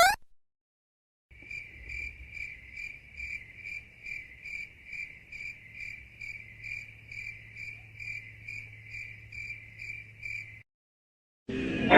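Crickets chirping in an even rhythm, about two to three chirps a second, over a faint low hum; the effect starts about a second in and cuts off suddenly near the end. This is the familiar 'crickets' meme cue for awkward silence. Music starts loudly just before the end.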